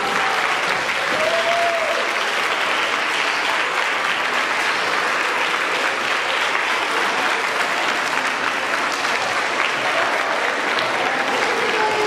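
Audience applauding steadily, with a single voice briefly calling out about a second in.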